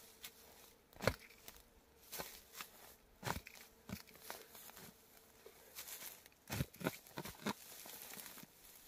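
Spade being worked into dry, grassy turf: an irregular series of short crunches and scrapes as the blade cuts in and is levered, with steps on dry grass.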